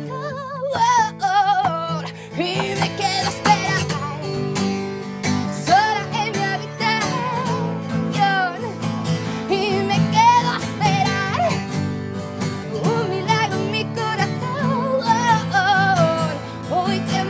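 A woman singing a melodic line with gliding, wavering notes over a strummed acoustic guitar.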